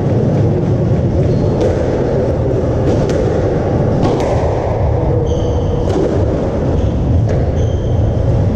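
Squash rally: the hard rubber ball cracks off rackets and the court walls in sharp knocks, roughly one a second, and court shoes squeak on the wooden floor twice, about five seconds in and near the end. Under it runs a steady, loud low rumble.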